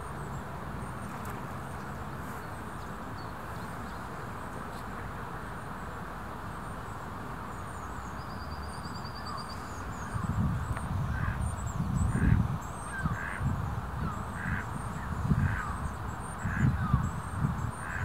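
Outdoor ambience: a steady background hiss with faint high bird chirps. About halfway through, wind starts gusting on the microphone, and a bird calls over and over, about once a second.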